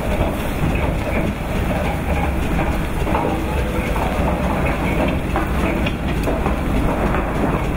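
Steam roller and steam traction engine rolling past close by on wet cobblestones: a steady, loud rumbling clatter of iron wheels and running gear, mixed with rain.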